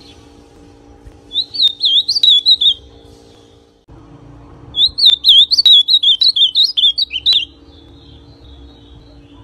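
Ultramarine grosbeak (azulão), a young male still in brown plumage, singing: a short warbled phrase of quick rising-and-falling notes about a second in, then a longer phrase midway.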